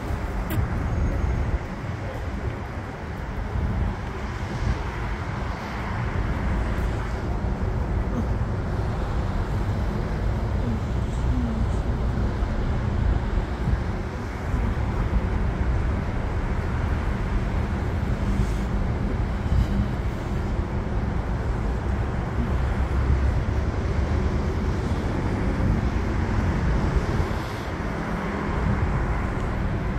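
Steady city road-traffic noise, a constant rumble with most of its weight low down and no distinct single events.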